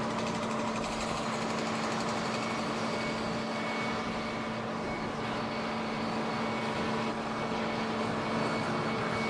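An engine running steadily at idle: a constant hum with one steady droning tone.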